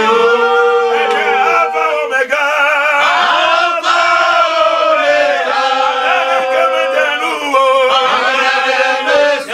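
Several men's voices chanting a worship song together, loud, with long held notes.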